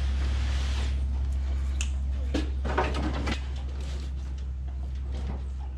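Scattered metal knocks and clanks as an engine hanging from a hydraulic engine hoist is worked loose from the car. They sound over a steady low hum that stops near the end.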